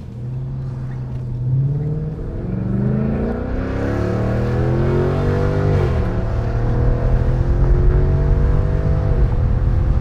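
Dodge Charger Scat Pack's 392 HEMI V8 with a Corsa Extreme cat-back exhaust accelerating hard. The engine note climbs, drops sharply at an upshift about six seconds in, climbs again and drops at another shift near the end, getting louder as the car comes closer.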